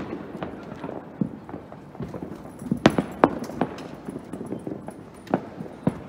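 Distant fireworks and firecrackers popping in an irregular scatter, with a few sharper cracks about three seconds in and two more near the end.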